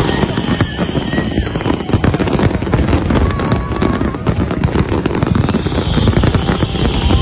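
Large aerial fireworks display: a dense, continuous barrage of bangs and crackles in quick succession, with no let-up.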